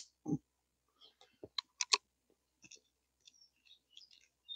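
Weihrauch HW100 air rifle being handled after a shot: a dull knock, then a quick run of sharp metallic clicks about a second and a half in as the action is worked, followed by a few fainter clicks.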